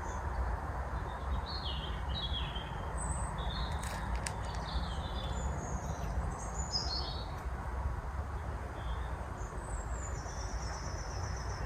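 Songbirds singing in short, high, varied phrases, with a rapid trill of repeated notes near the end and a couple of faint clicks about four seconds in, over a steady low rumble.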